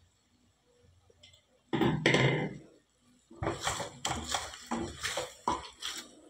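A clatter of cookware about two seconds in, then a silicone spatula stirring and scraping pieces of chicken around a kadai, several strokes a second.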